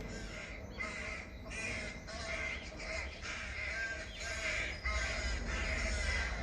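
A gralha, a crow-family bird, cawing over and over, about two short calls a second.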